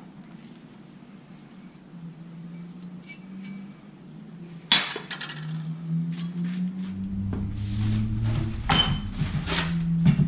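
Kitchen utensils clattering on a counter: knife, plates and pans knocked and set down, with one sharp knock about halfway through and a run of clicks and taps after it, over a steady low hum.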